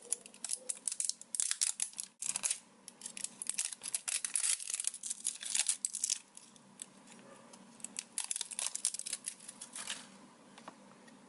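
A small cardboard toy box being torn open and handled, with rapid irregular crackling, tearing and crinkling for about six seconds, then only scattered rustles.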